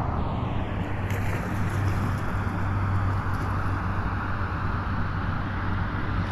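Car traffic on a rain-wet road: a steady hiss of tyres on wet pavement over a low, even engine hum.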